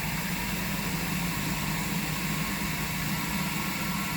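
A smart toilet's warm-air dryer fan running steadily, a constant hum with an airy hiss.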